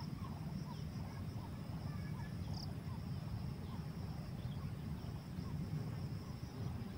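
Waterside ambience: a steady high insect drone with many short, faint bird chirps scattered through it, over a low steady rumble.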